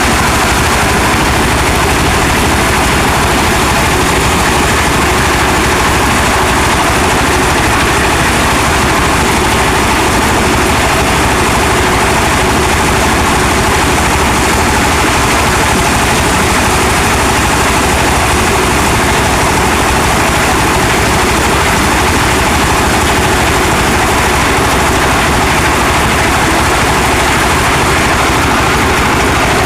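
Heavy farm machinery engine running steadily and loudly, a continuous mechanical drone with no let-up.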